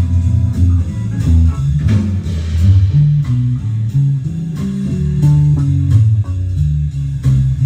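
Guitar music with a prominent bass line of plucked low notes changing several times a second.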